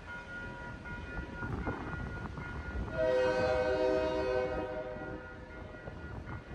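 Diesel locomotive's multi-chime air horn sounding once about three seconds in and holding for about two seconds, over the steady ringing of a grade-crossing warning bell.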